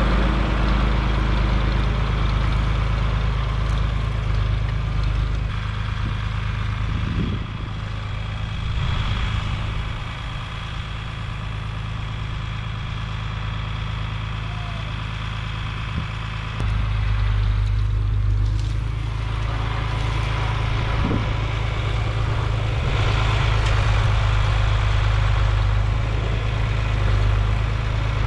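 Tractor engine running steadily, its note easing off about seven seconds in and picking up sharply again about sixteen seconds in as the load or engine speed changes.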